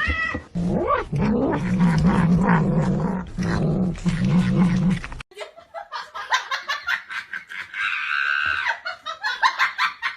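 A dog growling in long, low, broken rumbles for about five seconds. Then it changes abruptly to higher-pitched, rapidly pulsing yips.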